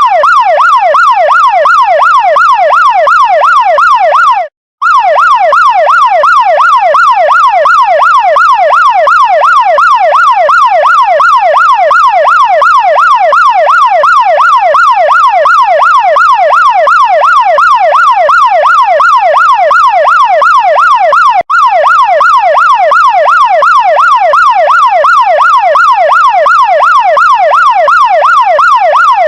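Chinese fire truck siren in a fast yelp, its pitch sweeping up and down about three times a second. It cuts out for a moment about four and a half seconds in and dips briefly about two-thirds of the way through.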